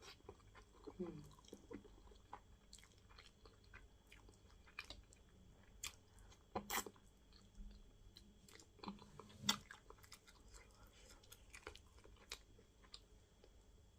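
Quiet close-up chewing and wet mouth smacking of a mouthful of okra fish stew with fufu, scattered clicks and smacks through, with a few brief hums of the voice, the loudest about two-thirds of the way in.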